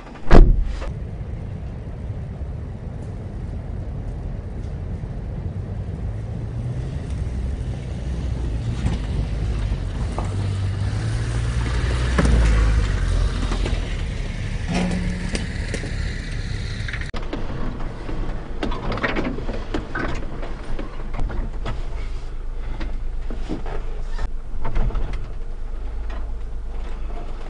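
A 1992 Daihatsu Hijet Climber mini-truck's 660cc carbureted three-cylinder engine running as the truck crawls over a rough trail, with knocks and rattles from the cab and body. The engine pitch rises and grows louder around the middle as it pulls harder. A loud thump comes just after the start.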